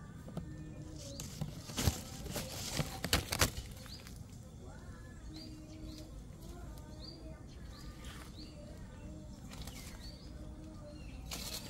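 Leaves and twigs rustling in a few short bursts about two to three and a half seconds in as a cat clambers through a small leafy tree, with small birds chirping repeatedly in the background.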